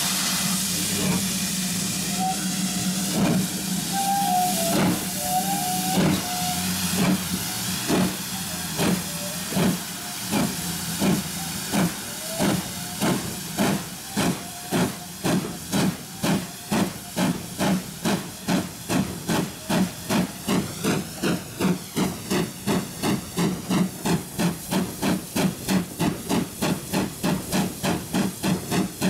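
Steam exhaust beats of GWR Modified Hall 4-6-0 No. 6990, working hard. The chuffs start about a second apart and quicken steadily to two or three a second, over a steady hiss of steam. A few short high squeaks come between about three and seven seconds in.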